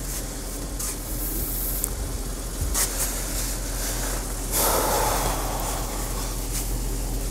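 Steady low hum with a few faint clicks, and a short louder rustling noise about four and a half seconds in.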